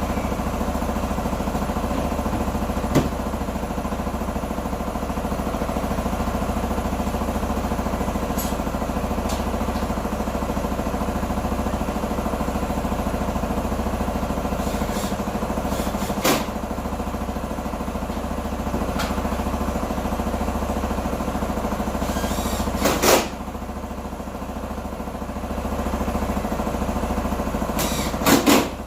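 Q2 125 Dynamic motorcycle engine idling steadily after repair. A few sharp knocks or clicks break in, single ones about three and sixteen seconds in and louder pairs near the middle and near the end.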